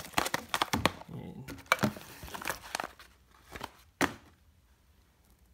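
Plastic packaging crinkling and rustling in quick clicks as a small bag is handled, with a sharp knock about four seconds in, then it goes fairly quiet.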